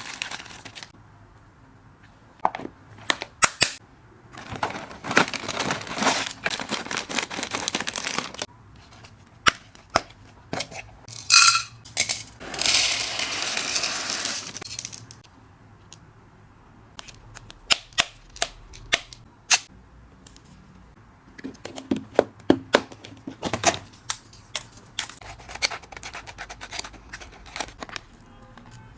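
Hamster snack packets and storage containers being handled: plastic packaging crinkling and tearing, with many small clicks and taps. About twelve seconds in there is a few seconds of steady rustling.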